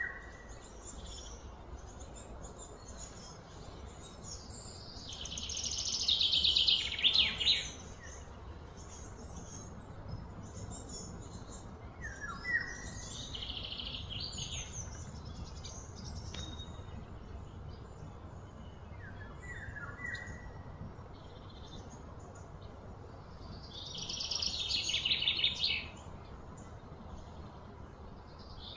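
Outdoor ambience with birds calling: a few short falling chirps and two louder, high, rapidly pulsing trills, each lasting a couple of seconds, over a steady low background rumble.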